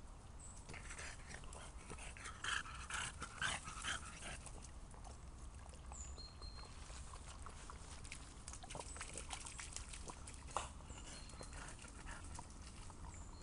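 French Bulldog sniffing and snuffling through wet grass, in short noisy bursts that are loudest about two to four seconds in.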